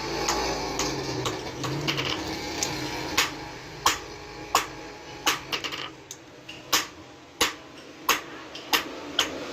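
Hand hammer striking metal in a run of sharp, light blows. The blows are faint at first, then louder and roughly every two-thirds of a second from about three seconds in.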